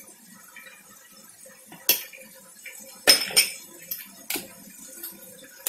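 Metal spoon clinking against a small glass bowl and a stainless steel mixing bowl as food colour is scraped out and stirred into chicken: a handful of sharp, separate clinks spread over a few seconds, with quiet between them.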